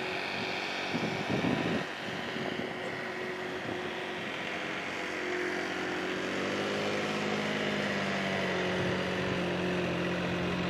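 An engine droning steadily in the background. About six seconds in its pitch bends and settles at a new pitch, and it gets slightly louder.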